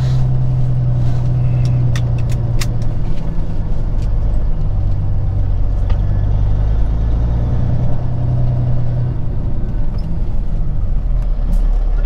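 Peterbilt 379 semi truck's diesel engine running at low road speed, a steady low drone with a few light clicks and rattles in the first few seconds. The engine note shifts about nine seconds in as the truck nears an intersection.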